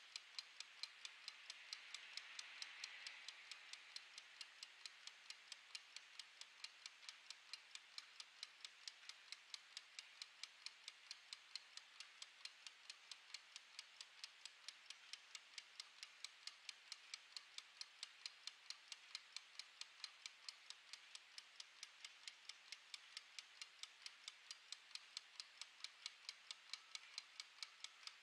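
Mechanical wind-up kitchen timer ticking as its clockwork escapement runs down the set time: a faint, rapid, perfectly even run of sharp ticks.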